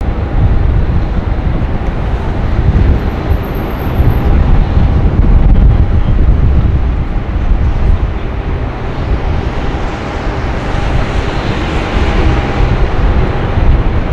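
Airbus A380's four jet engines on final approach, a steady roar that grows brighter and louder past the middle as the plane nears, over heavy wind rumble on the microphone.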